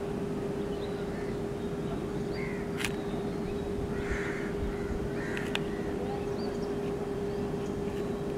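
Birds calling: a few short, harsh caws and some thin chirps, over a steady low hum. Two sharp clicks are heard, about a third and two-thirds of the way through.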